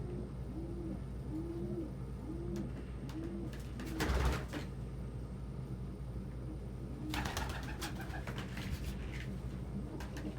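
Domestic pigeons cooing, a series of about six low rising-and-falling coos in the first four seconds. A louder noisy burst comes about four seconds in, and a cluster of shorter ones follows around seven to nine seconds.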